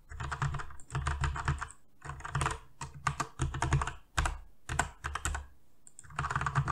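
Typing on a computer keyboard: several quick runs of keystrokes separated by brief pauses.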